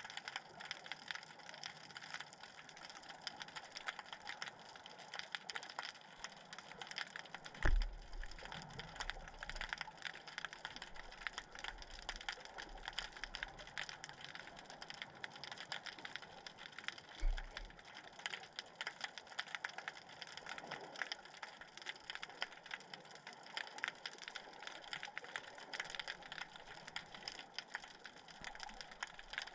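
Underwater crackling: a steady, dense patter of tiny clicks, with two low thumps about eight and seventeen seconds in.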